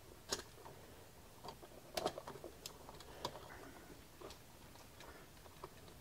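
Faint, irregular small clicks and light knocks of hands working a USB wall outlet: wires being pushed into its back-wire holes and a screwdriver turning a terminal screw.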